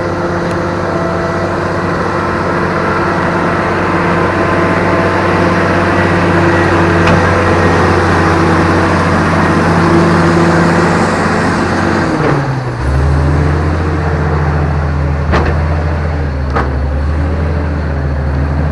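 Engine of a log-pulling machine running steadily under load. About twelve seconds in, its speed drops and settles at a lower, deeper note. A couple of sharp knocks come near the end.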